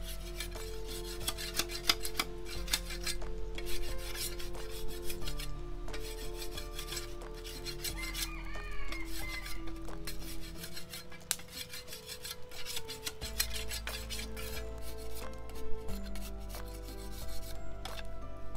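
A machete blade scraping and shaving a piece of bamboo in quick, repeated rasping strokes, over soft background music.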